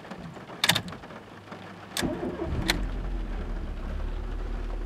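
Dacia Duster's engine started with the ignition key, heard from inside the cabin: a few clicks about a second in, a brief crank at about two seconds, then the engine catches and settles into a steady low idle.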